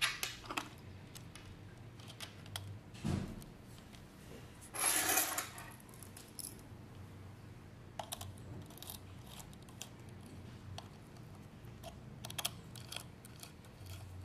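Small metallic clicks and scrapes of a screwdriver and wire working the screw terminals of a Full Gauge TIC-17RGTi controller as the sensor cable is fastened. There is a sharper knock about three seconds in and a longer scraping rustle about five seconds in.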